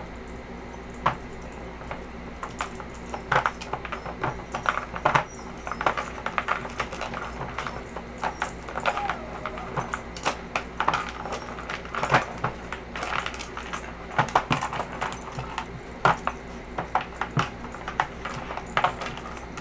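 A puppy working a plastic dog puzzle feeder with its nose and paws: irregular clicks and clacks as the plastic pieces slide and knock, a few every second.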